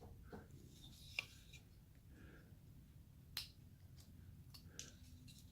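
Near silence broken by a few faint, sharp clicks, two of them clear, about a second in and past three seconds in: a hand carving tool cutting into basswood.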